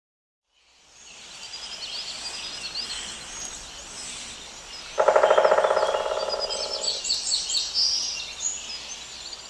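Woodpecker drumming: one fast roll of rapid strikes on a resonant tree trunk, starting suddenly about five seconds in and lasting about two seconds. Small birds chirp and twitter throughout.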